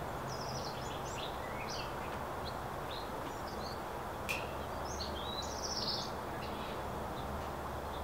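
Small songbirds chirping in short, varied high phrases over a steady background rush, with one sharp click about halfway through.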